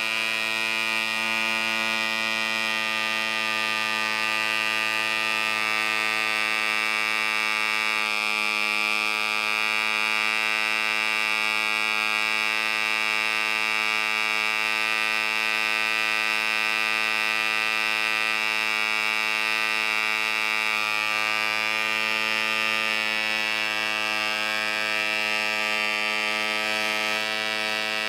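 Red Fin .049 model diesel, a tiny two-stroke compression-ignition engine, running flat out on a test stand with its propeller spinning: a steady high-pitched buzz that holds its speed with only slight drift in pitch.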